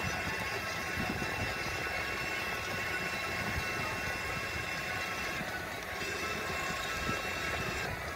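Small hard wheels rolling over asphalt: a steady rumbling road noise with frequent irregular knocks from the road surface, under a faint steady high hum.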